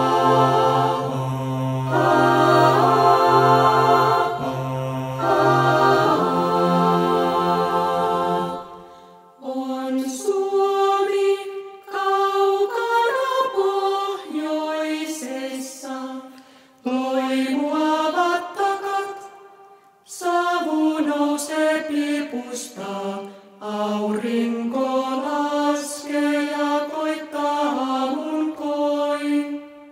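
Mixed a cappella choir singing in Finnish. For about the first nine seconds the voices hold chords over a low sustained bass note; then the low voices drop out and the upper voices sing moving phrases, with short breaks between them.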